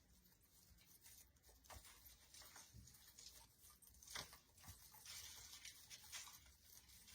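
Near silence with faint rustling and a few light clicks as artificial pine picks and a zip tie are handled; one click about four seconds in is a little louder.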